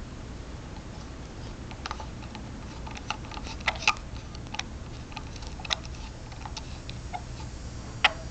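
Scattered small metallic clicks and ticks of a screwdriver working a brake pad pin plug into a motorcycle brake caliper, threaded slowly by hand so as not to cross-thread it. The clicks come irregularly, thickening from about two seconds in, over a steady low hum.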